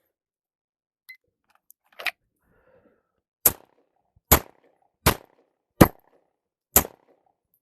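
Five pistol shots from a SIG P320 X5, fired strong hand only, spaced just under a second apart. A fainter sharp click comes about two seconds in, before the first shot. Only five rounds go off in the string, one round having failed to fire from a light primer strike.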